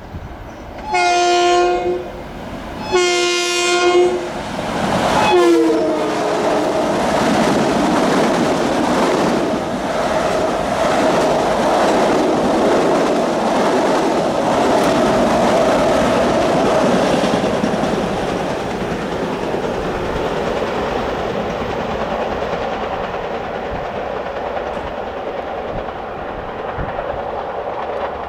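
Long Island Rail Road train sounding its horn in two long blasts and a short third one that drops in pitch as it goes by. Then the noise of the passing train's wheels on the rails, fading slowly.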